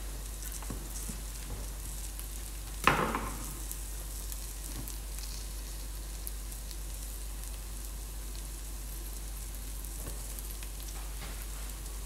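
Onions frying in oil and butter in a large pan: a steady, fairly quiet sizzle with faint crackles. A single sharp knock sounds about three seconds in.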